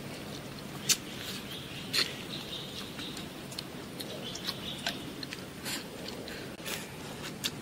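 Close-up eating sounds: chewing and smacking of rice and spicy duck head, with several sharp clicks of chopsticks against a bowl, the loudest about one and two seconds in, over a steady faint background with small chirps.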